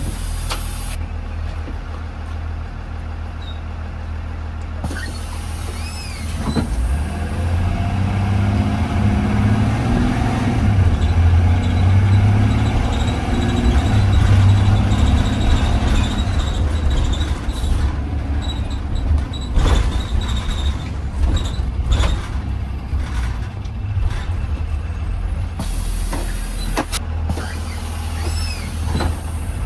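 Inside a 2020 Blue Bird Vision school bus under way: the engine drones steadily, growing louder about seven seconds in as the bus pulls harder, then easing. Several sharp knocks or rattles come through in the second half.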